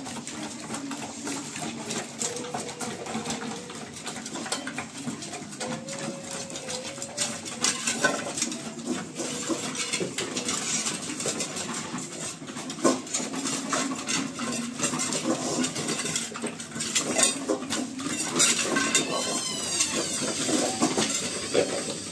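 Dogs eating from stainless steel bowls: the metal bowls knock and scrape against the tile floor as the dogs push their food around, in many small irregular clicks.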